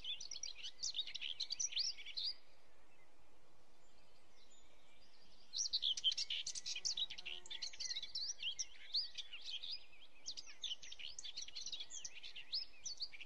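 Small birds chirping in quick, high twittering runs: one run at the start, then a pause of about three seconds, then a longer run that carries on to the end.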